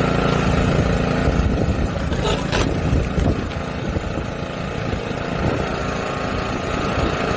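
A motor running steadily, with a brief knock or rattle a little over two seconds in.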